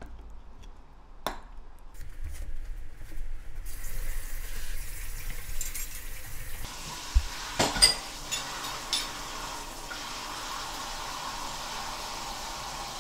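Running water, steady from a few seconds in, with a few sharp clinks of kitchenware: one early and a pair a little past halfway.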